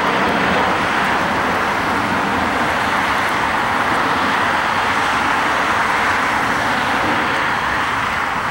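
Steady roar of an Airbus A319-112's twin CFM56 turbofan engines at climb thrust as the jet climbs away after takeoff.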